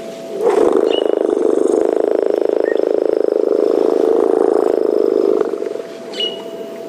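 African elephant rumbling: one long, deep rumble of about five seconds, starting about half a second in, with a fine rapid pulsing through it.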